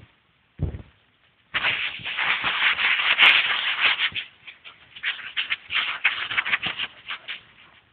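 Loud, close rustling and scuffling from two dogs wrestling on grass, with fur, paws and grass brushing right against the microphone, thick with short crackles. A single low thump comes about half a second in, just before it.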